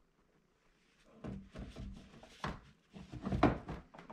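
A TV stand base being worked into the notches on the back of an LG CX OLED TV: a run of dull clunks and rubbing as it is pushed in at an angle. It starts about a second in, and the loudest knock comes about three and a half seconds in.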